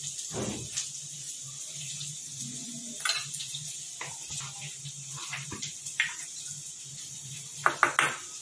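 Steel spoon clinking and scraping against a small steel bowl as thick sauce is spooned in, a few light clinks followed by a quick run of louder clicks near the end, over a steady low hum.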